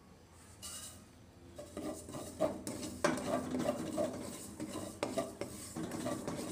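Wooden spatula stirring and scraping sesame seeds around a wok as they toast, in repeated strokes that start about one and a half seconds in, with a sharp knock of the spatula on the pan about three seconds in.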